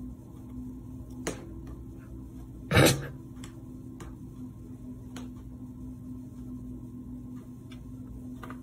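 A cat moving about on a desk: several light taps and clicks, and one louder thump about three seconds in, over a steady low hum.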